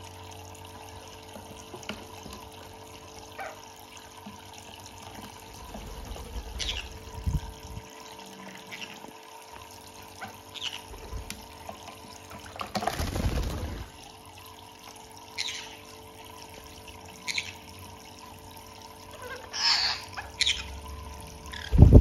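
Small faucet of a pet bird bathtub trickling steadily into the water, with bursts of splashing as green-cheeked conures bathe and flap their wings in it. The longest splash comes about two thirds of the way through, with more splashes near the end.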